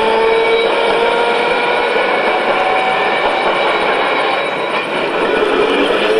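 Electric model trains running on the layout track: a thin motor whine that slowly shifts in pitch, over a steady background din of people.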